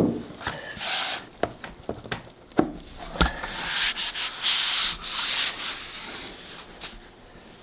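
Vinyl flooring plank being worked into place on the floor: scraping and rubbing, with a thump at the start and a few sharp knocks.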